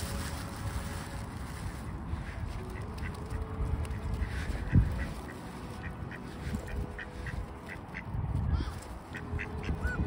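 Mallard ducks quacking in short repeated calls over a steady low rumble, with one dull thump about halfway through.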